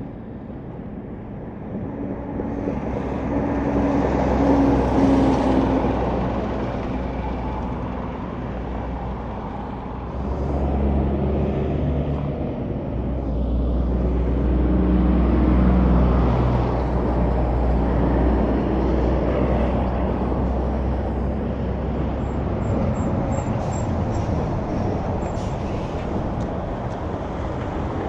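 Semi trucks passing on a highway. One goes by with its engine drone peaking about four to five seconds in. A louder, deeper one builds from about ten seconds in, peaks around sixteen seconds and fades slowly.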